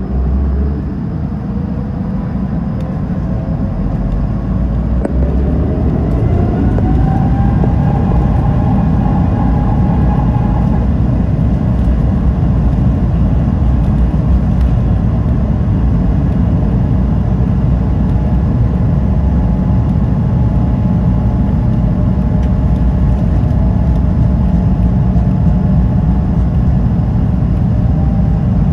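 Airbus A220-300's Pratt & Whitney PW1500G geared turbofans spooling up to takeoff power as heard inside the cabin: rising whine tones over the first ten seconds or so. A steady heavy rumble of engines and runway follows as the jet accelerates down the runway.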